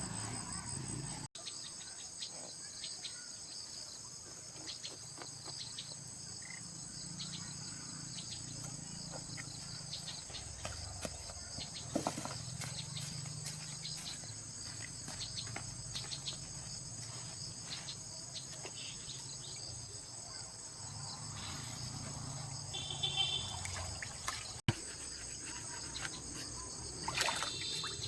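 Steady insect chorus of crickets chirping in a continuous high trill, with scattered light clicks and knocks over it.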